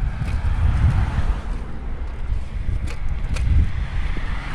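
Wind buffeting the phone's microphone, a strong uneven low rumble, with two sharp clicks about three seconds in.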